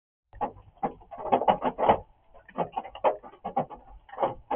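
Rain drumming: drops striking a hard surface in irregular taps that come in quick clusters, the densest and loudest a little over a second in.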